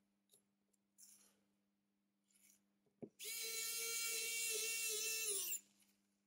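Small electric precision screwdriver running for about two and a half seconds, a steady whine that drops in pitch as it spins down, driving a screw on a Samsung Galaxy S9 smartphone. A sharp click comes just before it starts, with a few light taps earlier.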